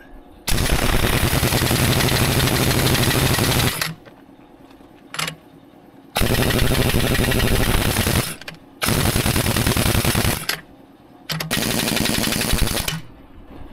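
Harbor Freight pneumatic impact wrench hammering on Caterpillar D9G track roller mounting bolts in four long bursts of a few seconds each, with a couple of short blips between, driving already-tight bolts a little tighter.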